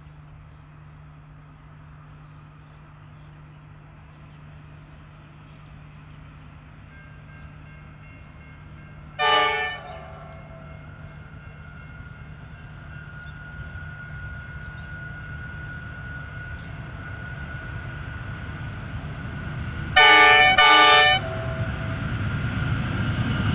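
Pacific National NR class GE Cv40-9i diesel-electric locomotive approaching under power, its engine drone growing steadily louder. It sounds its horn once, briefly, about nine seconds in, and twice in quick succession near the end as it draws close.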